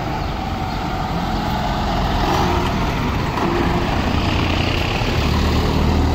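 City minibus and truck engines running in street traffic, with a deep engine drone getting louder about five seconds in.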